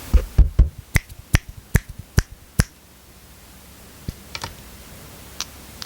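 About eight sharp finger snaps in quick succession, roughly two or three a second, then a few fainter snaps or clicks in the second half, made as a sound check of a microphone.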